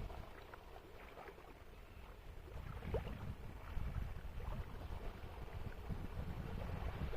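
Wind rumbling on the microphone over small splashes and lapping of sea water, the rumble growing louder a few seconds in.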